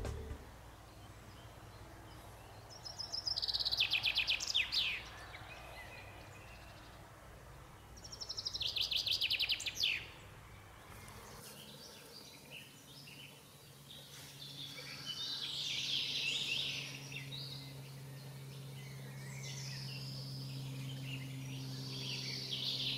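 Songbirds singing: two song phrases of rapid repeated notes that fall in pitch, each about two seconds long, then scattered chirps and twitters over a faint steady low hum.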